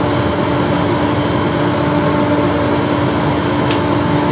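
Steady whirring of fan motors: a workshop dust extractor running, together with a small hand-held hairdryer blowing air to dry airbrushed paint on a wooden lure. The hum holds even throughout.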